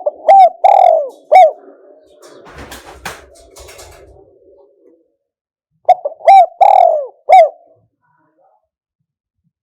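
Spotted dove cooing: two phrases, one at the start and one about six seconds in, each a few short coos with one longer, drawn-out coo. A faint rustle and a soft thump come between the phrases.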